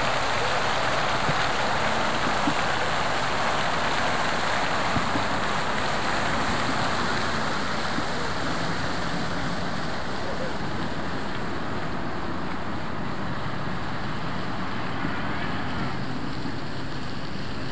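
Steady splashing hiss of a fountain's water jets falling into its pool, easing a little after several seconds.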